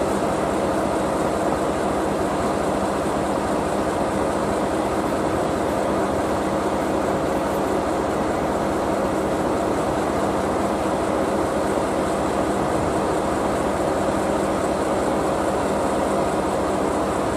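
Steady running noise of standing locomotives: the C11 steam locomotive under steam with a diesel locomotive coupled to it, a constant hum with steady tones and no sudden events.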